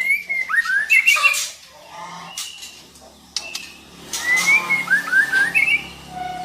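Female white-rumped shama calling: two bursts of short rising and falling chirps mixed with harsh rasping notes, the second burst about four seconds after the first.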